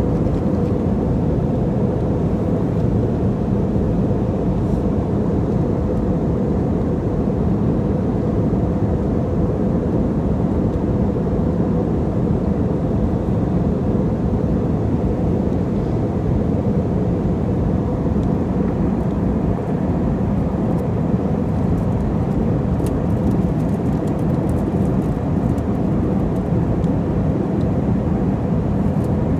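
Airliner cabin noise in flight: the steady low drone of the jet engines and rushing air, with a few faint ticks near the end.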